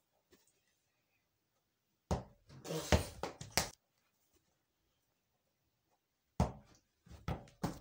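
A ball being knocked up and caught during keepy-uppy juggling: a run of dull thumps about two to four seconds in, then a single sharp thump at about six and a half seconds and a few more near the end, with near silence between.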